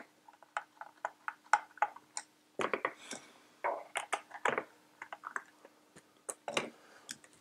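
Small Phillips screwdriver clicking and ticking as it unscrews the battery-compartment screw of a plastic clamp meter, then light plastic taps and clicks as the battery cover is lifted off. The clicks are irregular, with small clusters near the middle and again near the end.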